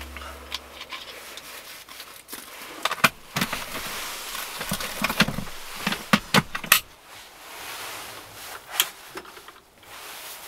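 Close handling sounds: clothing rustling and a run of sharp plastic clicks and knocks as a plastic drink bottle is capped and a plastic storage box lid is handled. The loudest knocks come about three seconds in and between six and seven seconds, with one more click near nine seconds.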